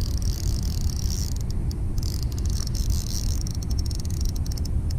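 Steady low rumble of wind buffeting the camera microphone, with faint irregular ticking high up from about a second in.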